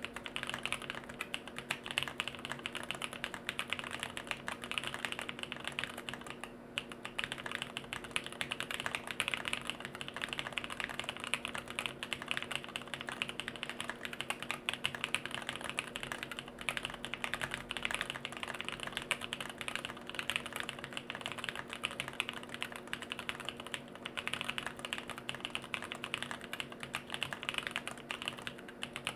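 Continuous, fast typing on a jLabs JP-02 custom mechanical keyboard built with Bolsa Supply Corsa switches on an FR4 plate with no foam, Durock V2 stabilizers and KBDFans Neon keycaps: a dense, unbroken run of key clicks.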